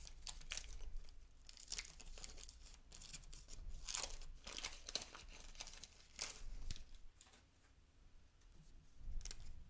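Wax-paper wrapper of a 1987 Topps baseball card pack being torn open and crinkled in a run of irregular crisp tears and rustles. It goes quieter for a moment near the end, then rustles once more.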